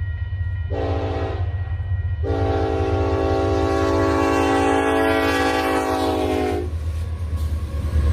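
Locomotive air horn sounding a short blast and then a long blast of about four seconds, over a steady low rumble.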